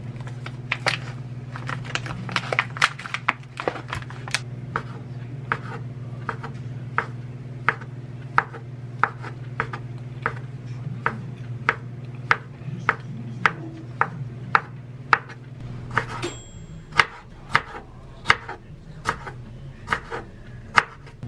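Kitchen knife chopping imitation crab sticks and then yellow pickled radish on a wooden cutting board: a steady run of sharp knocks, about one or two a second. A steady low hum sits underneath and drops out about three quarters of the way through.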